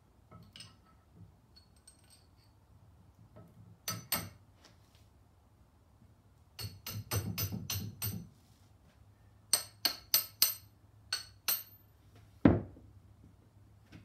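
Hammer striking carriage bolts to drive them into timber 4x2 leg braces: sharp, ringing metal-on-metal taps in bursts. There are two taps about four seconds in, a quick run of blows around seven seconds, and five spaced strikes near ten seconds, then one heavier knock near the end.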